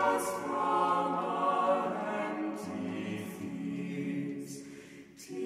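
Background music: a choir singing slow, long-held chords, dying away near the end.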